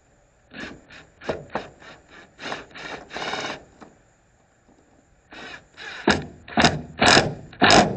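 Metal scraping and rasping in short, irregular strokes as a pickup-bed tie-down anchor is worked and tightened into its stake pocket. Its screw head is stripped. The strokes are loudest in the last two seconds.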